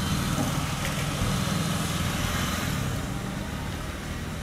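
A steady low mechanical hum, an engine or motor running in the background, even throughout with no distinct events.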